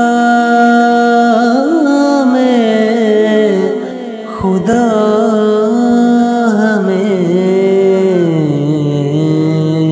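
A male voice singing a long wordless melodic line between verses of an Urdu naat. Notes are held and then bend through ornaments, with a short break about four seconds in, and the melody steps lower near the end.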